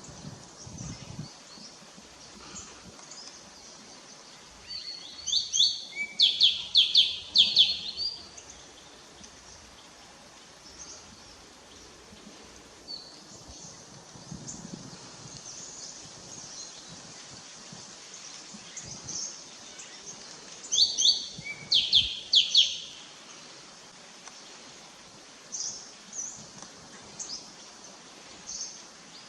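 A bird calling in two loud bouts of quick, high chirps, the first about five seconds in and the second about twenty-one seconds in, with fainter scattered chirps between them.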